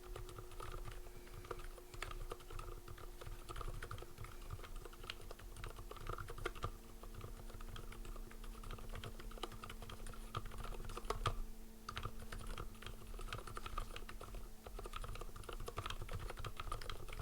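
Continuous typing on a JJ50 mechanical keyboard fitted with lubed Zilents silent tactile switches: a steady, irregular stream of key strokes.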